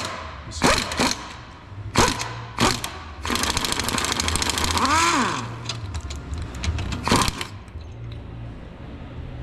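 Hand ratchet wrench clicking rapidly for about two seconds while a suspension bolt is turned, with a short rising-and-falling squeak near its end and a few separate metallic clinks of tools before and after.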